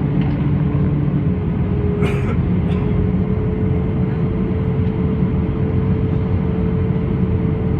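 Steady low rumble of an Airbus A320-214, with a constant hum above it and a short hiss about two seconds in.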